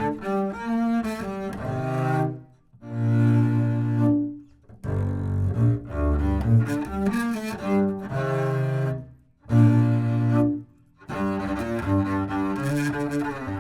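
Upright double bass played with the bow, unprocessed. It plays a phrase of sustained notes, some held for over a second, with quicker moving passages and several short breaks between phrases.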